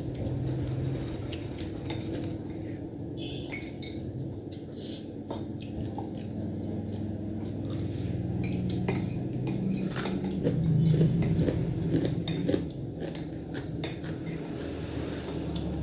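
Eating at a meal: many small clinks and taps of a plate and utensils, with chewing, over a steady low hum.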